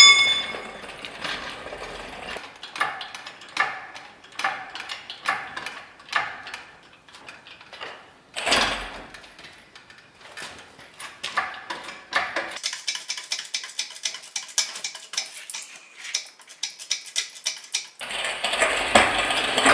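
Metallic clicking and clinking from a shop engine hoist and its lifting chain as an engine is raised: a run of single clicks with a light ringing, about one every half second or so, later a faster run of clicks, and a steadier noise near the end.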